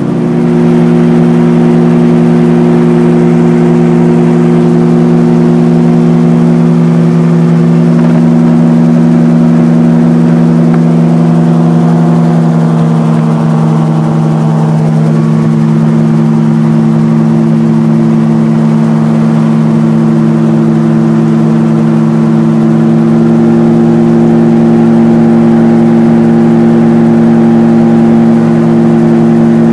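RAF 2000 GTX SE gyroplane's engine and pusher propeller running steadily in cruise, heard from inside the cockpit. The engine note shifts slightly about halfway through.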